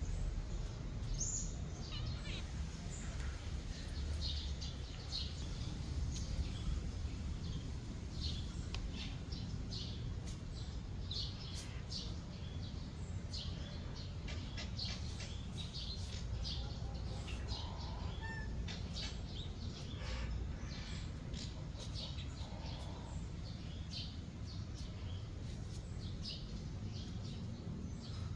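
Small birds chirping: many short, high chirps scattered throughout, over a steady low rumble.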